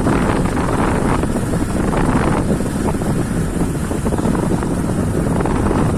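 Vehicle engine running on the move, with wind rushing over the microphone.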